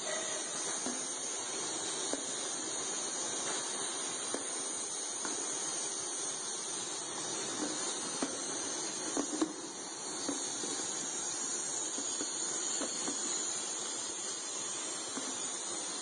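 Labeling machine running with a steady hiss, its conveyor carrying clear plastic tubs. A few light knocks come as tubs are set down and bump along, the loudest about nine seconds in.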